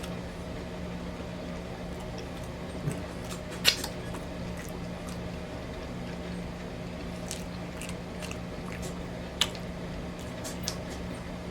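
Close-miked chewing of a bite of vegetarian chicken patty sandwich: soft wet mouth squishes and clicks, with two sharper clicks about four and nine seconds in, over a steady low hum.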